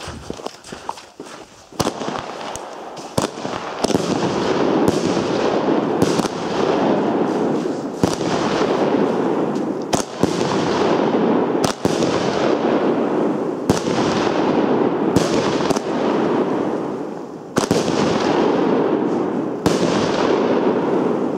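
Jorge Super Show 6 (JW91) 30 mm firework battery firing. Starting about two seconds in, its shells go off one after another, a sharp crack every one to two seconds, over a continuous hissing crackle from the bursting effects.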